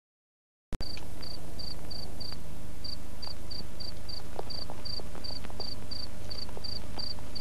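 A cricket chirping in a quick, even rhythm, about three chirps a second, over a steady hiss. It cuts in suddenly just under a second in, after silence.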